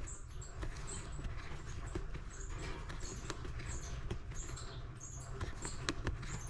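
Metal crochet hook working cotton thread through tight stitches: small irregular clicks and scratchy rustling, over a low steady hum.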